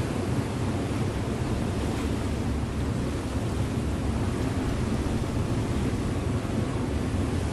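Motor ship under way on a river: a steady low engine drone mixed with the even rush of water.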